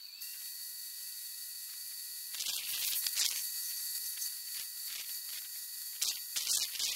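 Compressed-air spray gun spraying contact adhesive onto the back of a high-pressure laminate sheet: a steady airy hiss with a thin high whistle, with louder surges of spraying around the middle and again near the end.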